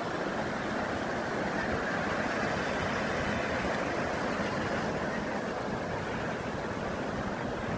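Steady rush of strong wind on the microphone with surf breaking on the shore.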